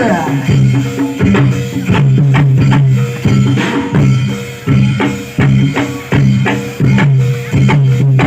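Live reog and jaran dor ensemble music: drums and percussion struck in a driving, repeating rhythm over low pitched notes.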